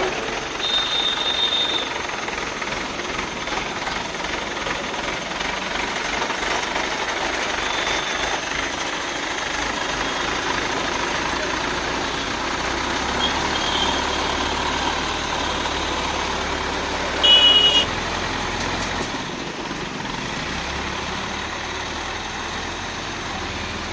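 JCB machine's diesel engine running steadily while it unloads logs, with a few short high-pitched beeps, the loudest about three-quarters of the way through.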